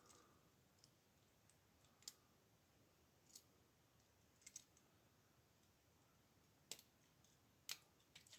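Faint, sparse metallic clicks of a lock pick and padlock being worked, about six single clicks spaced a second or so apart.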